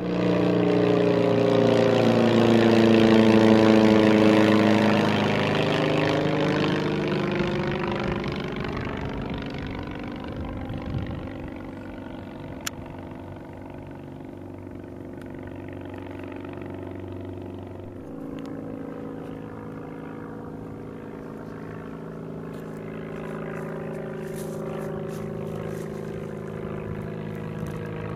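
Single-engine light aircraft's piston engine and propeller droning as it flies past, loudest a few seconds in and then fading to a steadier, quieter drone.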